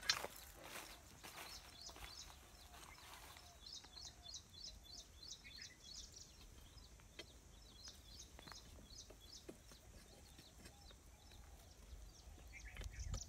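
Faint bird chirping, quick runs of short high notes, over the scratch and scrape of a stick digging into dry soil and stones in the first few seconds.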